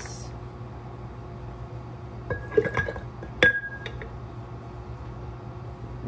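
Glass jars clinking against each other: a few light clinks a little over two seconds in, then one sharper clink that rings briefly.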